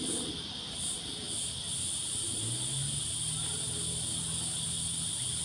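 Cicadas buzzing in a steady, high-pitched chorus that pulses for the first second or two, then holds steady. A faint low hum joins about halfway through.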